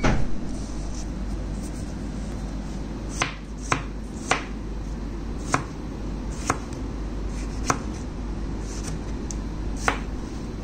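A knife slicing through tomatoes on a plastic cutting board, the blade tapping the board with a sharp click about once a second, irregularly, with a louder knock at the start, over a steady background hum.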